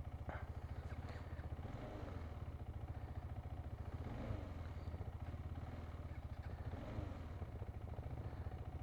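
Motorcycle engine running steadily at idle, a rapid even pulsing of its firing strokes.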